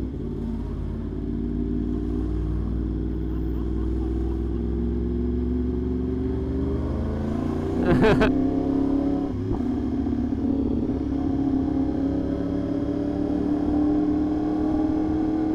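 Yamaha R1 sportbike's inline-four engine running under way, its pitch climbing slowly as it pulls, with a brief louder burst about eight seconds in, then climbing again.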